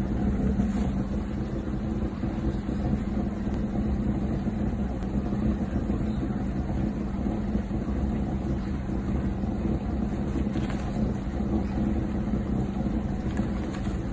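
Steady low mechanical hum that holds the same pitch and level throughout.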